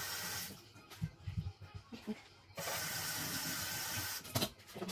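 Water from a kitchen tap running into a stainless-steel sink in two short spells, the second about a second and a half long. There are handling thumps in between and a sharp knock near the end.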